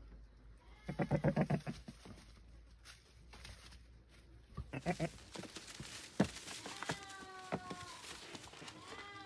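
Goats bleating: a loud, quavering bleat about a second in, a short one near five seconds, and higher, thinner drawn-out calls from about seven seconds.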